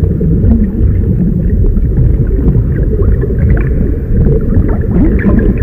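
Loud, deep, steady underwater rumble: a sound effect for the depths of the sea.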